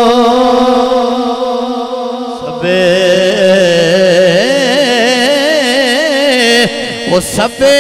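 A man singing a line of Punjabi Sufi kalam in long, drawn-out notes. He holds one steady note, and from about two and a half seconds in breaks into a wavering, heavily ornamented run, with short breaks near the end before the next phrase.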